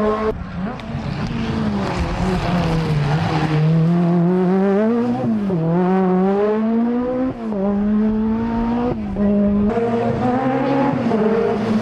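Peugeot 205 T16 Evo2 Group B rally car's turbocharged four-cylinder engine driven hard, the revs climbing and dropping again and again through gear changes and lifts. The sound jumps abruptly a few times where separate clips are cut together.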